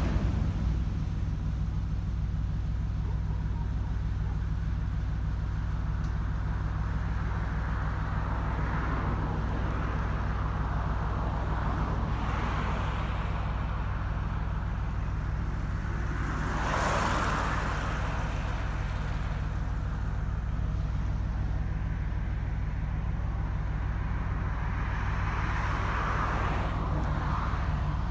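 Steady low drone of an M62 diesel locomotive's two-stroke V12 engine running slow during shunting, with several brief swells of rushing noise, the strongest about halfway through.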